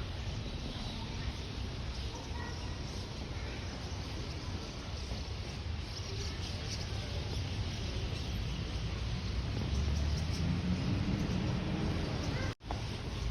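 A flock of birds calling faintly over steady outdoor background noise with a low rumble. The sound drops out for a split second near the end.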